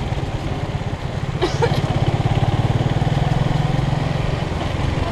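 Motorcycle engine running while riding, heard from the rider's own bike. About one and a half seconds in, its low pulsing note gets stronger and louder for a few seconds. A brief high-pitched sound comes just as it swells.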